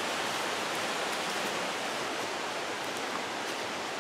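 Mountain creek running fast and high after a day of rain: a steady rush of water.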